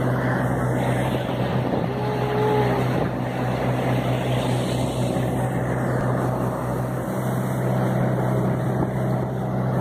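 Engine of a wooden river passenger boat running steadily under way, a constant low drone with the rush of water and wind along the open sides.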